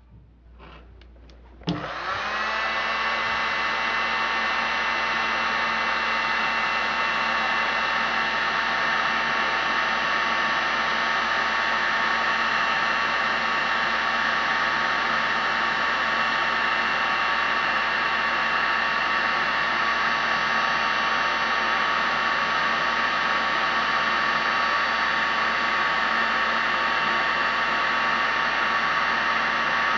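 Heat gun switched on about two seconds in, its fan briefly spinning up and then running steadily with a whine, blowing hot air onto a plastic pipe elbow to soften it.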